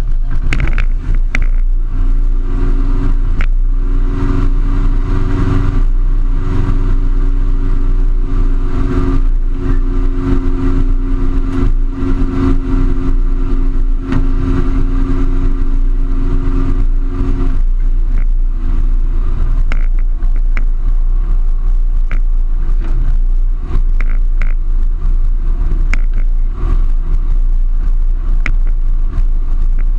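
Light aircraft's engine and propeller running steadily, heard from inside the cockpit while taxiing. The engine note changes about seventeen seconds in.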